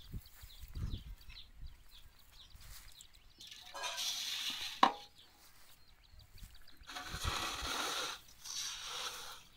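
Parboiled paddy grains rustling and hissing as they are scraped into a metal tray with a metal skimmer and poured from the tray into an aluminium bowl, in two swishing stretches. A single sharp knock partway through the first is the tray striking the bowl.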